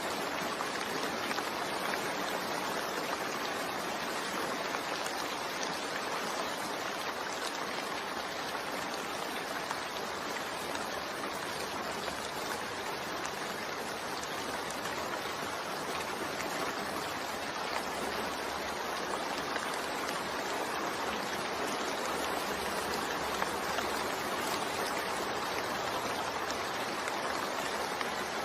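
Steady rain falling: a dense, even hiss of water that holds at one level throughout.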